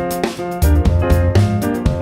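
Background music: a piano or keyboard tune over a steady bass line and drum beat.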